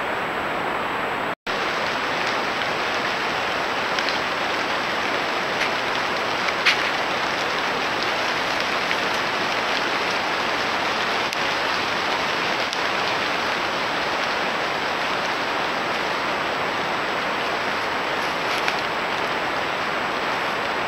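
Steady hiss from a trail camera's built-in microphone, with a few faint clicks and a brief dropout about a second and a half in.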